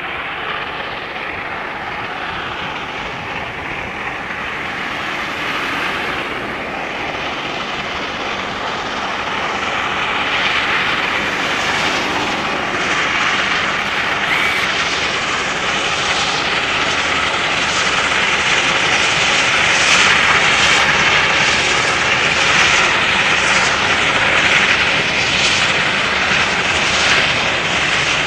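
Class 44 three-cylinder 2-10-0 steam locomotive working hard with a heavy freight train, its exhaust beats running together into a steady roar. The sound grows louder as the train draws near.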